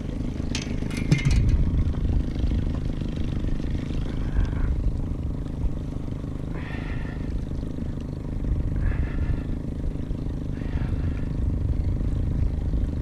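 Boat motor running steadily at trolling speed, a low even hum, with a short clatter about a second in.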